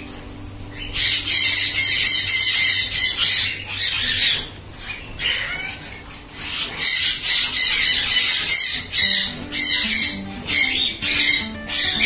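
Eclectus parrots giving harsh, rapidly repeated squawks in runs, with a pause about a second in and another from about four to six and a half seconds. Faint background music runs underneath.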